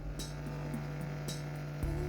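Background music with sustained tones and a light regular beat about once a second.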